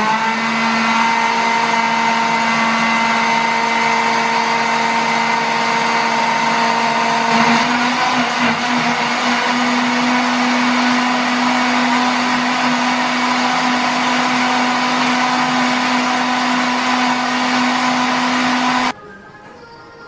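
Countertop electric blender motor running, puréeing apple chunks into juice: a steady whine that steps up slightly in pitch about seven and a half seconds in and cuts off abruptly about a second before the end.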